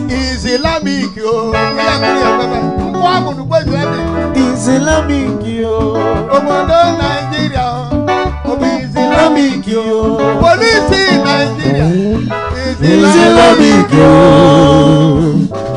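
Live praise band music: drum kit and instruments, with a male voice singing on microphone that is loudest near the end.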